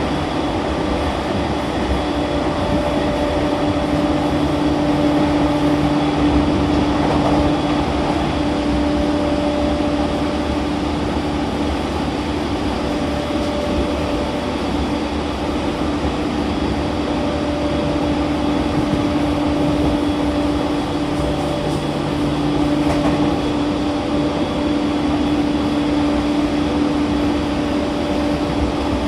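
Running sound inside the car of an E231-1000 series electric train at steady speed: even rolling noise with a steady hum that fades in and out a few times.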